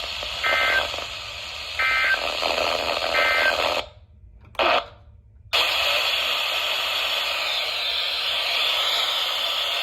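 Emergency Alert System end-of-message data tones: three short, identical warbling two-tone blips about a second and a half apart over broadcast hiss, marking the end of the severe thunderstorm warning message. The audio then cuts out twice briefly and comes back as steady radio static.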